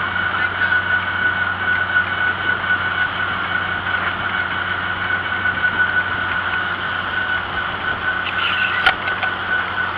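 John Deere tractor engine running steadily while towing a wagon on a paved road, with a steady high-pitched whine throughout and one sharp click near the end.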